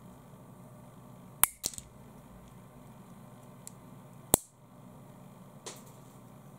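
AIHAO AH-801A plastic pen cracking as it is bent and squeezed by hand: a quick run of three sharp snaps about a second and a half in, one loud crack just past four seconds, and a lighter snap near the end.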